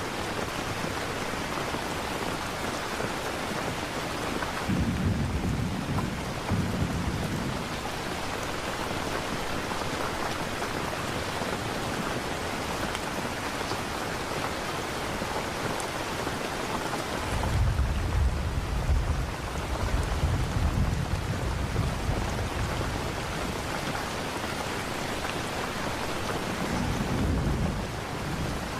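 Steady heavy rain with rolls of low thunder: one about five seconds in, a longer rumble from about seventeen to twenty-two seconds, and another near the end.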